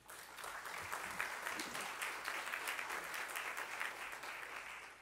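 Audience applauding, a dense patter of many hands clapping that starts right away and dies down near the end.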